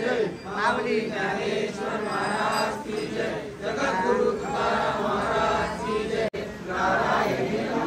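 A crowd of voices chanting together in unison: a devotional chant, as at a Navratri aarti.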